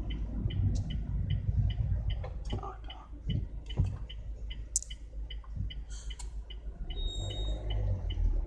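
Car turn-signal indicator clicking steadily, about three clicks a second, over the low rumble of the idling engine inside the cabin.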